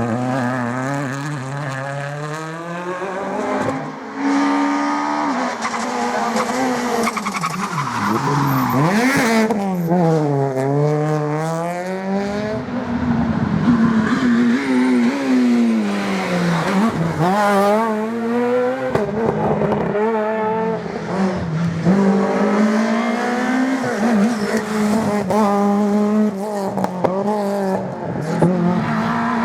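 Rally cars' engines revving hard and passing at speed, the pitch climbing and dropping again and again through gear changes and lifts off the throttle, with tyres squealing and skidding on the road.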